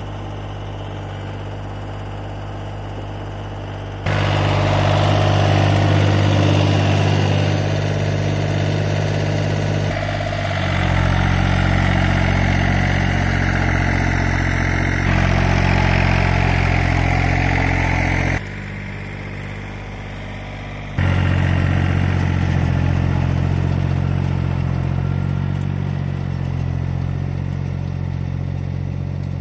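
Small tractor engine running steadily while pulling a rotary tiller through the soil. The loudness steps up and down abruptly several times.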